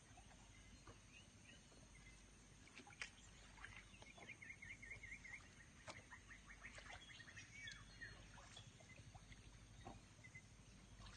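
Faint birds chirping, with a quick run of repeated warbling notes about four to five and a half seconds in, over near-quiet background.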